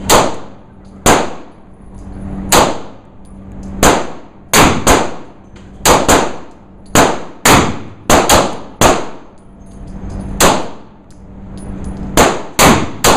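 9mm pistol firing single shots, about sixteen at an irregular pace, some in quick pairs, each shot ringing out in the echo of an indoor range. A steady low hum runs underneath.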